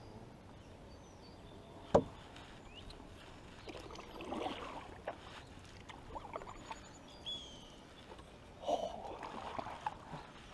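Canoe paddles dipping and pulling through calm river water, in splashy strokes every second or two. A single sharp knock about two seconds in is the loudest sound.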